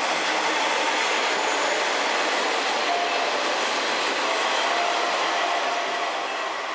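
KiHa 120 diesel railcar running past close by on the platform track: a steady rushing noise of wheels on rail and engine, easing off slightly near the end.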